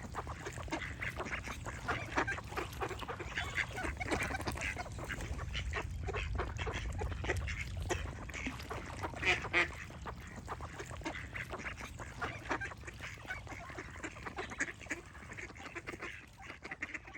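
A flock of ducks quacking, many short calls overlapping without a break, over a low rumble. The calling eases off slightly near the end.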